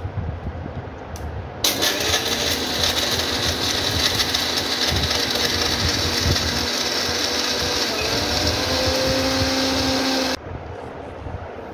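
Electric mixer grinder with a stainless-steel jar grinding Oreo biscuits to powder. The motor starts about two seconds in, runs steadily with a high whine, and cuts off suddenly near the end.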